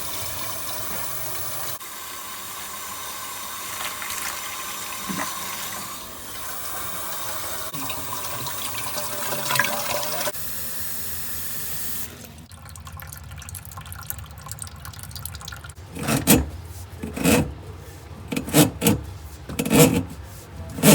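Water running steadily in plumbing, cutting off abruptly about twelve seconds in. A few seconds later comes a run of short, loud rasping strokes, about one or two a second.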